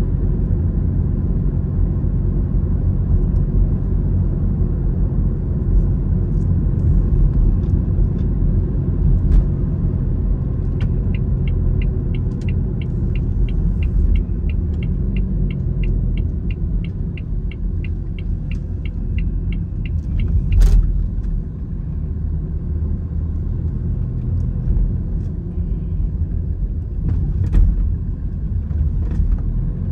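Steady engine and road rumble inside a moving car. About a third of the way in, a turn-signal indicator starts ticking evenly, about three ticks a second, for roughly nine seconds. A single sharp knock comes just after the ticking stops.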